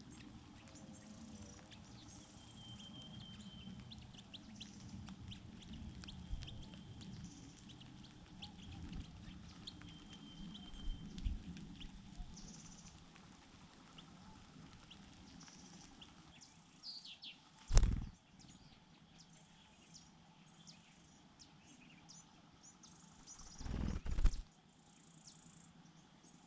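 Faint, scattered high chirps of small birds, with two brief loud rushing noises, one about 18 s in and one about 24 s in.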